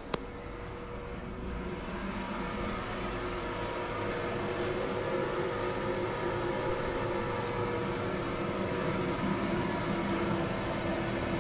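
Steady running noise and hum of a passenger train heard from inside a Z1A compartment coach, growing gradually louder. A single sharp click right at the start.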